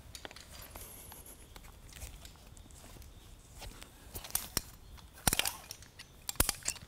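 A rock climber's hands slapping and gripping the holds on an overhanging rock face: scattered sharp slaps and clicks over a low hiss, loudest around five seconds in and again near the end.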